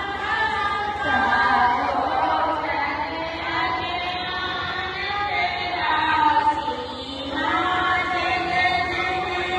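Devotional singing by a woman's voice with music, long held notes that waver and change pitch every second or two.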